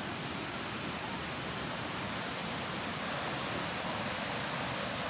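Steady rush of falling water from a waterfall, an even hiss without breaks.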